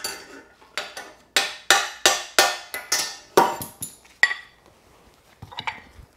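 Hammer blows on a steel drift, a dozen or so sharp metallic strikes at about three a second, driving a bearing race remover and the steel steering-neck bearing race out of a Harley-Davidson Sportster frame. The strikes stop about four seconds in as the race comes free, followed by softer metallic handling clatter.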